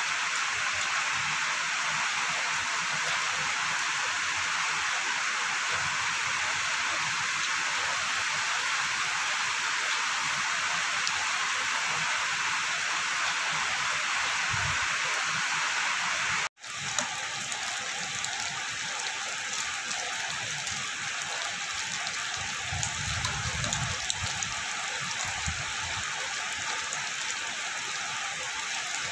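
Heavy rain falling in a steady hiss. There is a sudden brief cut about halfway through, after which the rain goes on a little quieter.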